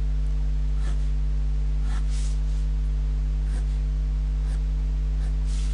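Pencil drawing along a plastic ruler on paper: several short, faint scratchy strokes over a steady low electrical hum, which is the loudest thing throughout.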